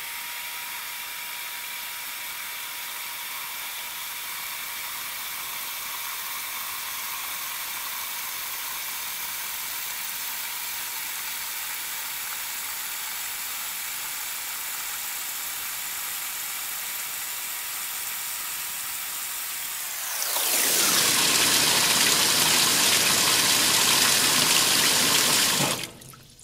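Magic Chef top-load washer filling its tub with water for the rinse, in sped-up playback, so the rush of water is a high, steady hiss. About 20 seconds in, the pitch falls back to normal speed and the water runs louder, then it cuts off suddenly near the end as the fill valve shuts.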